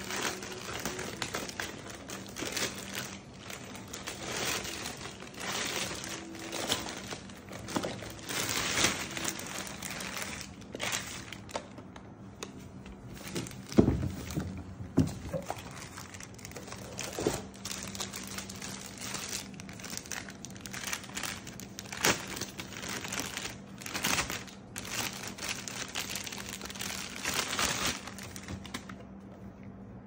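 Plastic bag crinkling and rustling in irregular handfuls as it is pulled off a robot vacuum, with a single thump just before the halfway point.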